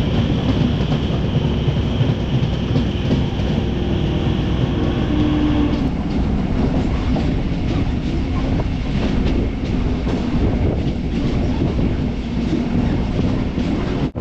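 MEMU electric train running on the rails: a steady, heavy rumble, its character changing about six seconds in.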